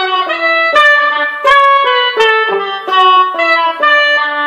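Synth trumpet voice from a guitar-to-MIDI converter, triggered by picking the strings of a Seagull Merlin. It plays a simple melody of separate held notes and ends on a long sustained note.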